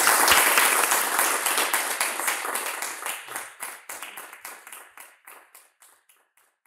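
Audience applauding, dense at first, then thinning to scattered separate claps that fade away.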